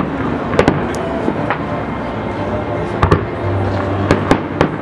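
Aerial fireworks shells bursting: an irregular string of sharp bangs, some in quick pairs, over a steady background din.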